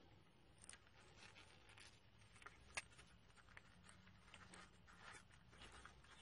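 Very faint handling noise as brass electronic expansion valve parts are fitted together by gloved hands: small scrapes and light clicks, with one sharper click a little under halfway through.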